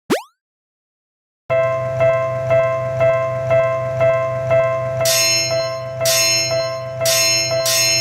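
A short rising cartoon 'boing' right at the start, then, after a second of quiet, a Japanese level-crossing (fumikiri) warning bell ringing 'kan kan' about twice a second over a low hum. From about five seconds in, a second, brighter bell joins, struck about once a second.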